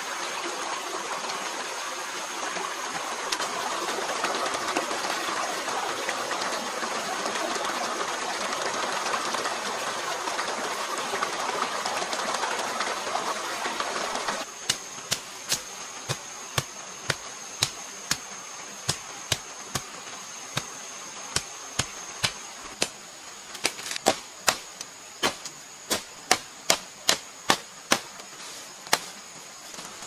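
Shallow forest stream running over stones, cutting off about halfway; then a run of sharp chopping strikes, about two a second and louder near the end, as undergrowth is hacked with a blade. A steady high insect buzz runs underneath.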